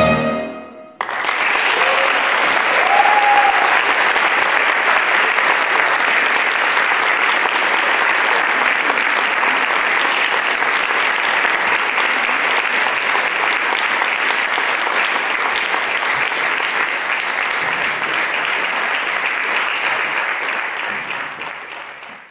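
A jazz band's last chord ends abruptly about a second in, then the concert audience applauds steadily, fading out near the end.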